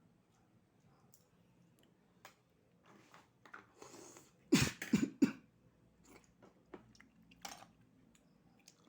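A person coughing three times in quick succession about four and a half seconds in, the food having gone down the wrong way, with a rasping breath just before the coughs.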